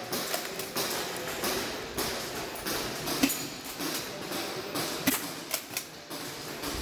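Airsoft gun shots and BBs striking targets: a run of irregular sharp clacks, several a second, with the loudest about three seconds in.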